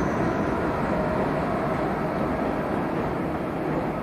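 Vintage R33 subway cars rolling away on elevated tracks: a steady rumble of steel wheels on rail, slowly fading as the train recedes.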